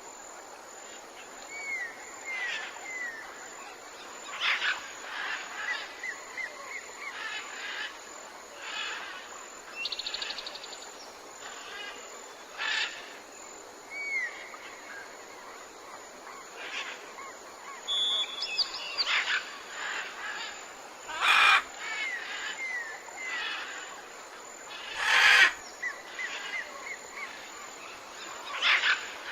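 Tropical jungle birds calling: runs of short, falling whistled notes repeat among a mix of other calls, over a steady high-pitched tone. Two louder calls stand out, about two-thirds of the way through and again near the end.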